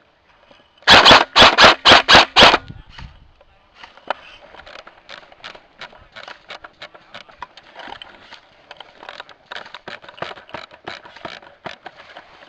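An airsoft gun fires six loud shots in quick succession, about four a second, starting about a second in. After that comes a long run of irregular crunching steps on dry ground.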